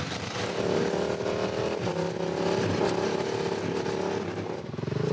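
Motorcycle engine running under way on the road, its pitch stepping up and down as it changes speed, then dropping to a slower, pulsing beat near the end.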